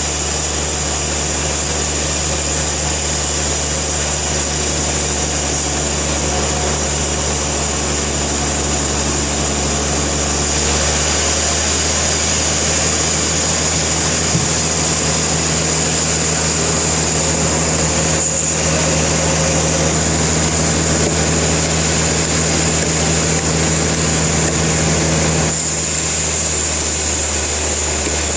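Sawmill machinery running steadily with a low hum and a high hiss; the sound changes abruptly about a third of the way in and again near the end.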